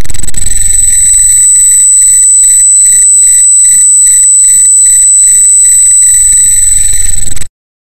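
Very loud, distorted electronic ringing: a piercing high tone with a rapid pulsing beat. It cuts off suddenly near the end.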